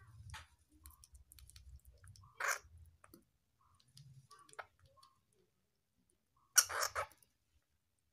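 Flying squirrel feeding, with faint chewing clicks and two louder harsh hiss-like calls: a short one about two and a half seconds in and a longer stuttering one about a second before the end.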